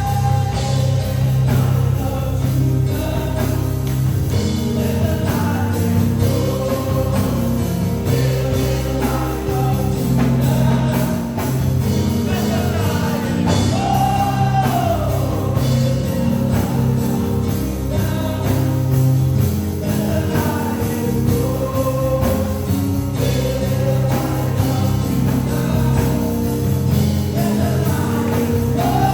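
Gospel worship music: a band with a strong, steady bass line under sung melody lines that swell and bend in pitch.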